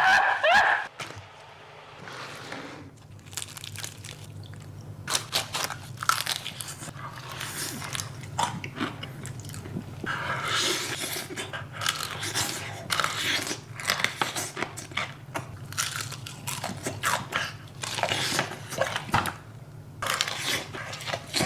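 Crispy deep-fried chicken being bitten and chewed up close, with irregular crunching crackles in clusters.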